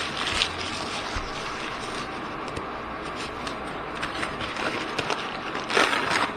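Plastic packaging crinkling and rustling as it is handled, with a louder burst of crackling about six seconds in.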